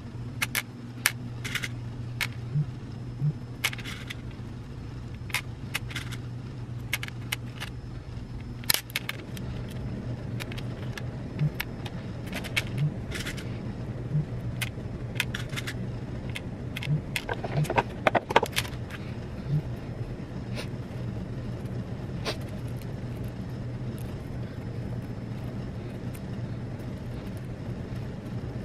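Beads clicking lightly and irregularly as they are handled and threaded onto clear elastic cord, with a brief flurry of clicks about two-thirds of the way in, over a steady low hum.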